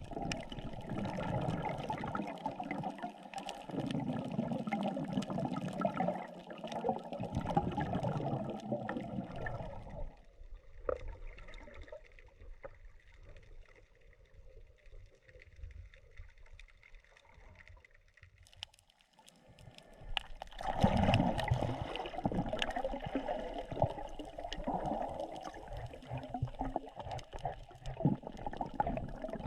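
Water gurgling and sloshing around a camera used while snorkeling. It quietens from about ten to twenty seconds in, with a few faint clicks, then comes back louder.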